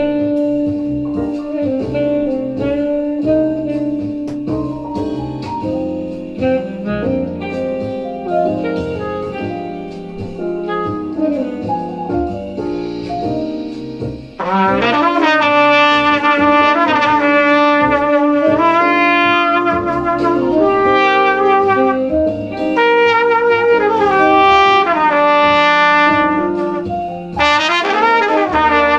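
Jazz backing music plays. About halfway through, a trumpet enters loudly over it and improvises lines of quick, moving notes.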